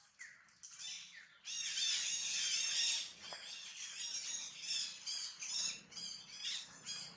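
Newborn baby monkey crying in distress with high-pitched squeals while another female pulls at it. The cries are loudest and unbroken for about a second and a half near the start, then come as short calls about two or three a second.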